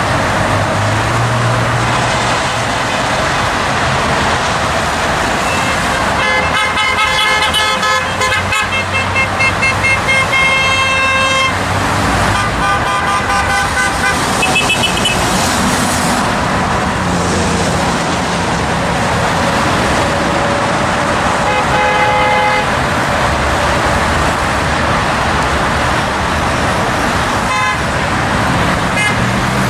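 Steady highway traffic passing under an overpass, with car horns honking: a run of long and repeated honks, several of them overlapping, from about a fifth of the way in to about halfway, then a few shorter honks later.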